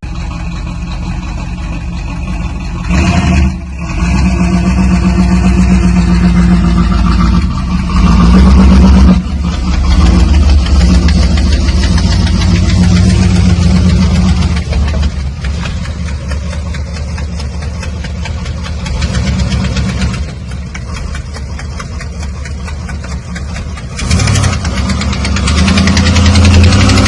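Chevrolet Camaro engine running, its level rising and falling over several stretches, with a sound the owner suspects may be an exhaust leak.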